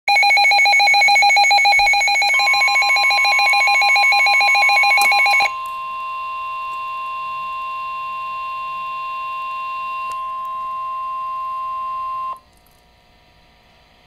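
A Midland weather radio's alarm gives a loud, rapidly pulsing beep. About two seconds in, the steady NOAA Weather Radio warning alarm tone joins it. The beeping stops after about five seconds, and the warning tone carries on alone until it cuts off sharply about twelve seconds in, leaving a faint hiss. This signals that a warning is being broadcast.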